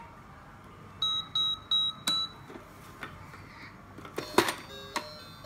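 Toy ATM coin bank's keypad beeping four times in quick succession as the password buttons are pressed. Near the end there is a knock and a short run of electronic tones from the toy.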